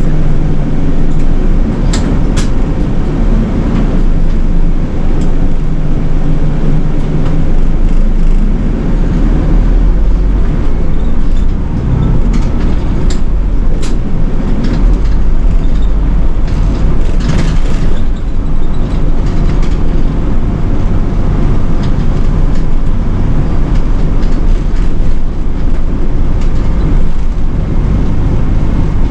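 City bus under way, heard from inside at the front: the diesel engine runs steadily with road rumble. A few short clicks and rattles come through, twice near the start and a few more in the middle.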